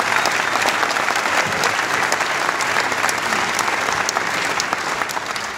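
Theatre audience applauding: dense, steady clapping that tapers slightly near the end.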